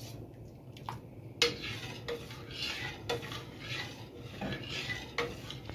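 A long metal spoon stirring milky strawberry atole in a large stainless-steel pot: soft swishing through the liquid, with the spoon clinking against the side of the pot about four times.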